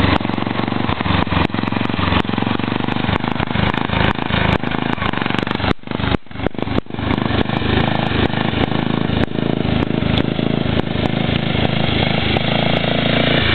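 Cub Cadet 482 lawn tractor's 11 hp Briggs & Stratton engine running loud and steady through a dual straight-pipe exhaust. The sound drops out briefly about six seconds in, then comes back.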